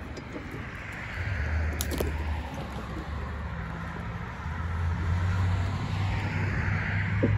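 Road traffic: cars driving past, the tyre and engine noise swelling and fading twice over a low steady hum. A single sharp click about two seconds in.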